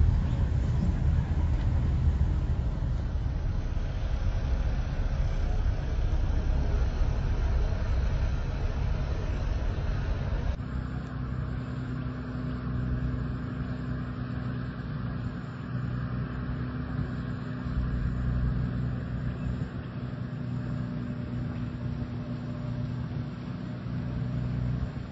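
Heavy machinery running with a steady low engine rumble. About ten seconds in it changes abruptly to a steadier machine hum with a held low drone.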